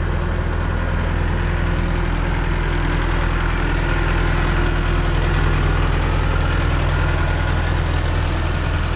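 John Deere 310G backhoe's four-cylinder diesel engine running steadily at a constant, low speed.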